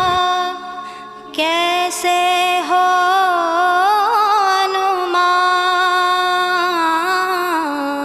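Devotional song playing as background music: a voice holding long sung notes that waver in pitch, with a short break about a second in.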